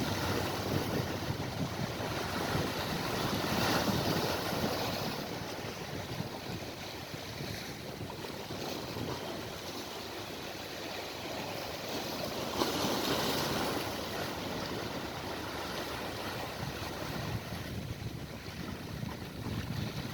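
Sea waves washing against the shore in a steady surf noise, swelling into louder surges about four seconds in and again about thirteen seconds in.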